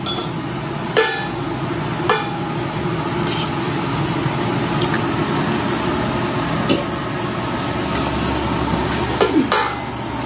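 Food sizzling steadily in a frying pan, with a few sharp clicks of a utensil against the pan.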